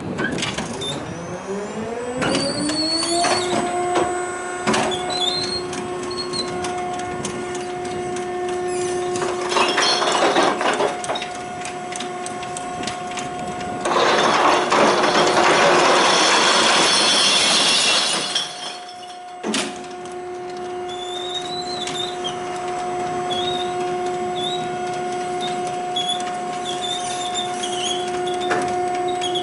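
The bin-lift drive of a battery-electric glass-recycling truck runs up with a rising whine, then holds a steady whine as the loaded sorting bins are raised. About 14 s in, glass bottles pour from the tipped bins into the hoppers with a few seconds of loud crashing and shattering. A sharp knock follows, and the steady whine returns as the bins come back down.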